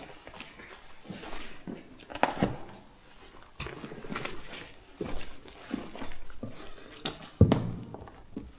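Irregular scuffing and knocking from people moving about on the rocky floor of a mine chamber, with one sharp knock about seven and a half seconds in.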